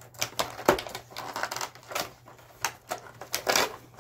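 Cardboard advent calendar compartment being pried open and the item inside pulled out: an irregular run of crackles, taps and rustles of card, the sharpest about two-thirds of a second in and near the end.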